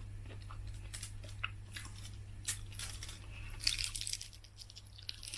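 Faint eating sounds: a few small clicks and soft crunches as someone bites and chews, with a cluster of them about two thirds of the way in, over a steady low hum.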